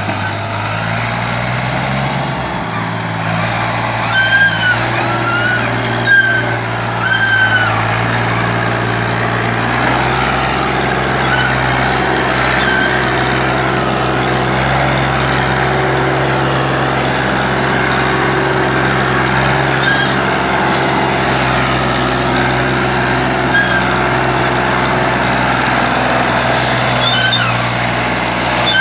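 Old Fiat 480 tractor's three-cylinder diesel engine running steadily under heavy load as it pulls a trolley loaded high with sugarcane across soft field ground. A few short high chirps sound over it around four to seven seconds in and again near the end.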